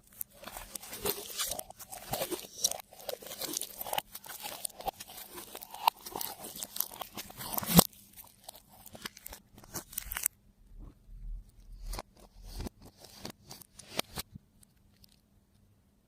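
Slime being squished and kneaded by hand with things mixed into it, giving dense crackling and clicking. One sharp pop comes about halfway through, after which the clicks grow sparse and quieter.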